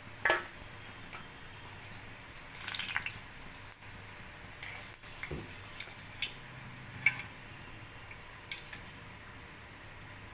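Green bean bajji deep-frying in oil in a steel kadai: a faint steady sizzle, with scattered clinks and scrapes of a wire spider skimmer against the pan as the fritters are stirred and lifted out.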